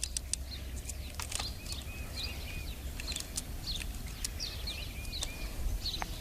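Wild songbirds chirping and calling, including a run of short, evenly repeated notes, over a steady low rumble and a few light clicks.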